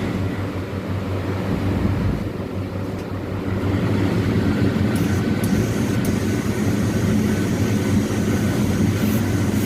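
Steam boiler unit of a steam iron running: a steady low mechanical hum with a hiss over it, growing a little louder about three and a half seconds in.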